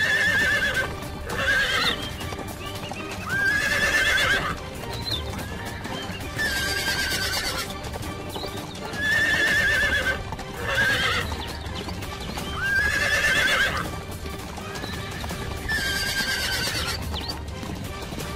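Loud whinnying calls of an equine animal, about a second each, some rising and some falling in pitch. The same set of four calls repeats about every nine seconds, as a looped track would. Background music plays under them.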